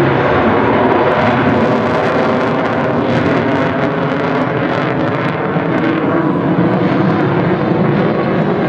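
Jet noise from an F-22 Raptor's twin Pratt & Whitney F119 turbofans during a display pass, loud and steady, easing slightly about halfway through before building again.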